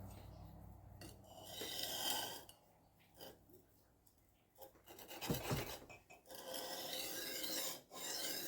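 Steel knife blade (Ontario RAT-7) scraping across a 600-grit Ultra Sharp II diamond sharpening plate in freehand strokes. It is a rasping scrape in separate passes, with a quiet pause in the middle and a low bump about five seconds in.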